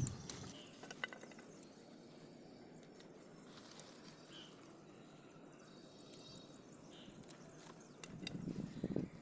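Pruning shears snipping cowpea pods off the plant: a few faint, scattered clicks among quiet outdoor background, with a louder rustle of handling near the end.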